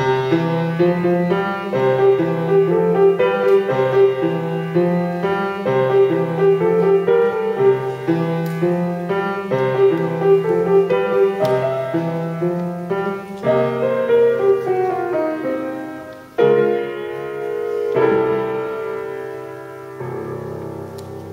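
Upright piano playing a simple blues tune: a repeating left-hand bass figure under a right-hand melody. About two-thirds of the way in it moves into a falling run, then ends on three struck chords that ring on and fade.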